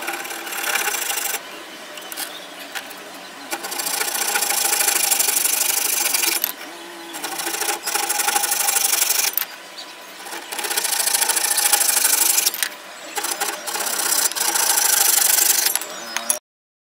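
Handsaw cutting through a wooden strip, with a rasping back-and-forth stroke in several runs of a few seconds each and short quieter pauses between. It cuts off suddenly near the end.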